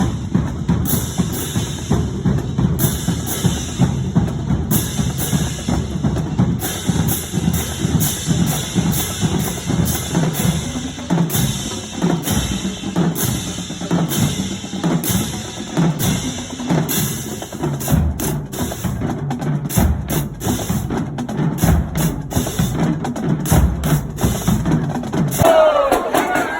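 Marching-band drumline playing a fast, steady cadence, with bass drums and snare-type strikes throughout.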